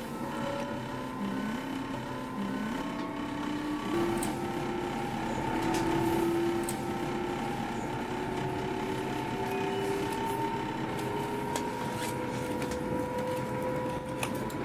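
Electric train's traction motors and inverter whining inside the passenger car as the train gathers speed. The tones jump up in pitch twice in the first few seconds, then climb slowly, over a steady rumble of the wheels on the track and occasional light clicks.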